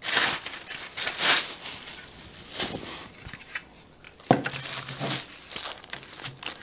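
Clear plastic wrap crinkling in several bursts as it is pulled off a white plastic craft-tower tray, then a sharp knock about four seconds in as the plastic tray is set down on the table.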